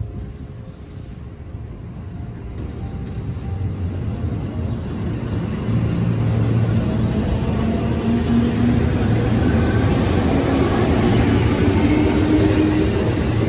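JR Sagami Line 205 series electric train pulling away and passing close by. It grows steadily louder with a low rumble, and its motor whine rises in pitch as it gathers speed.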